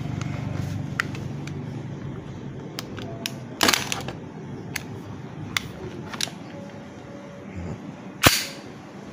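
Slide of a KJ Works KP02 (Sig Sauer P229) full-metal gas airsoft pistol being racked to cock it: small handling clicks and two sharp metallic clacks, one about three and a half seconds in and the loudest near the end.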